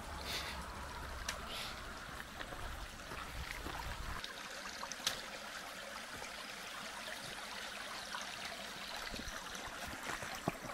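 Shallow woodland stream trickling over rocks, with a few sharp clicks of footsteps on the stones. A low rumble under it stops about four seconds in.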